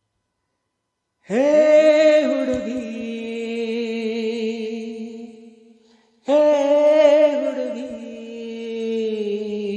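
A solo voice singing unaccompanied: two long held notes, the first starting about a second in and the second about six seconds in, each wavering at its start, then holding steady and fading.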